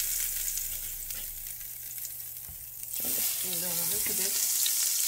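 Butter melting and sizzling in hot olive oil in a frying pan. The sizzle eases slightly in the middle and picks up again about three seconds in.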